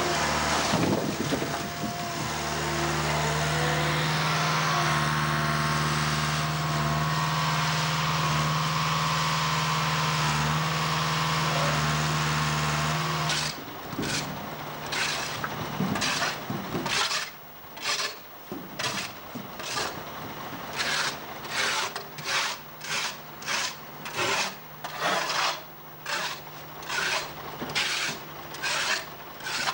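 Loader engine running steadily as beets are tipped into a truck. It cuts off suddenly, and a shovel then scrapes again and again across the floor of a tipper trailer, roughly one to two strokes a second, as leftover sugar beets are cleared out.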